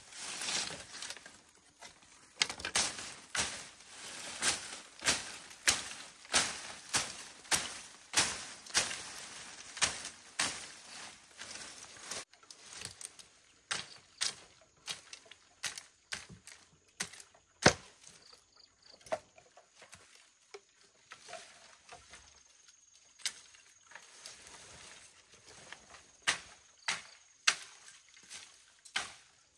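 Leafy vines being cut and pulled away: a steady run of sharp cutting strokes and leaf rustles, a little faster than one a second, becoming scattered and fainter in the second half, with one sharp snap a little past the middle.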